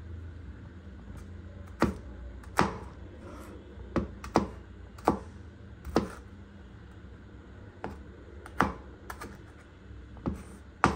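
Cleaver-style kitchen knife chopping a green bell pepper on a wooden cutting board: about a dozen sharp knocks of the blade on the board, unevenly spaced, roughly one a second.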